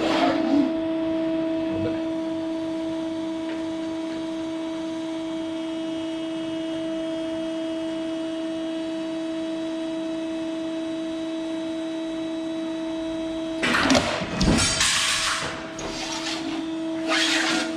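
Komatsu sheet-metal guillotine shear switched on and running with a steady hum. About 14 s in comes a loud burst of clattering noise as the shear works, and a shorter one near the end.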